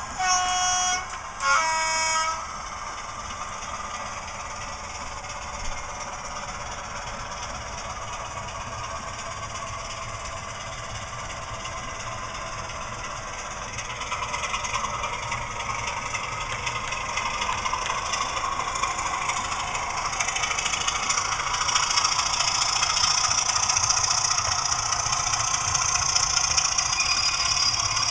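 Sound decoder in a Heljan OO-gauge Class 26 model diesel locomotive, played through the model's small speaker: two short horn blasts, the second lower in pitch, then the recorded diesel engine running. From about halfway the engine sound builds up and stays loud as the model is driven away under power.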